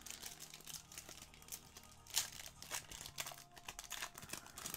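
Plastic wrapper of a trading card pack being torn open and crinkled by hand: a dense, irregular run of crackling rustles with one sharper rip about two seconds in.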